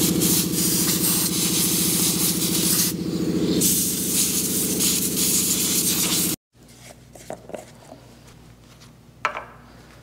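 A steady machine drone with a fast, even pulse, like a motor running, that cuts off abruptly a little over six seconds in. After it, only faint clicks and one sharper tap near the end.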